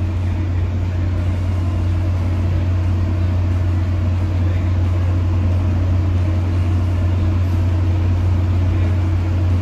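Interior noise of a Tri-Rail commuter train coach as it rolls slowly alongside a station platform: a steady low hum under an even rumble, unchanging throughout.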